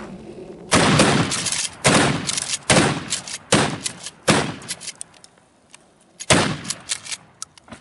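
Pump-action shotguns, one a Mossberg 590, firing slugs: six loud blasts in about six seconds, the last after a short pause, with lighter clicks between shots.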